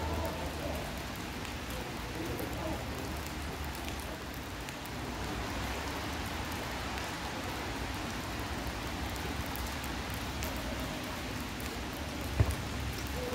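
Steady rain hissing and pattering, with one sharp thump of a football being kicked near the end.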